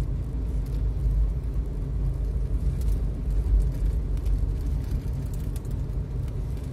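Steady low rumble of a moving road vehicle, with wind noise on the microphone.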